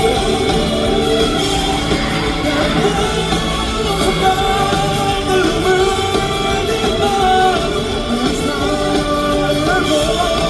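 Live rock band music with singing: a loud, steady mix of band and voices.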